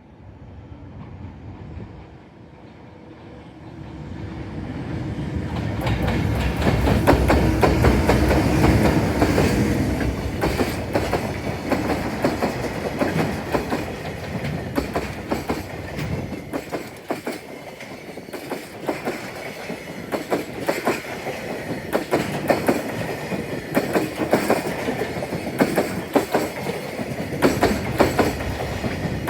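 JR Freight EH200 electric locomotive and its train of Koki container flatcars passing. A rumble rises as the locomotive approaches, loudest a few seconds in, then the wagons' wheels clickety-clack over the rail joints as the long string of container cars rolls by.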